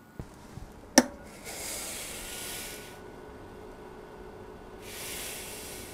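A sharp click about a second in, then a white foam block pushed across a hot-wire foam slicer's table, making a hissing rustle twice, with a faint steady hum underneath.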